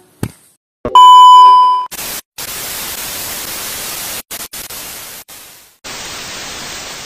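A loud, steady electronic beep lasting about a second, then several seconds of hissing white-noise static broken by short gaps, like an edited-in TV-static sound effect.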